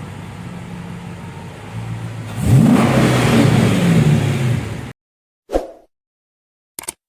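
Chrysler 5.7 HEMI V8 running at a steady idle, then revved up about two and a half seconds in and held there. This is the engine after its oil pump and all valve lifters were replaced to cure a knocking noise. The sound cuts off abruptly near five seconds, and two brief short sounds follow.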